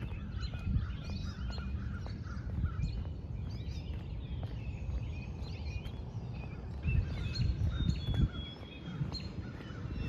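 Several songbirds chirping and singing in trees, with many short calls and one longer held note near the end, over the low thud of footsteps walking on a paved path.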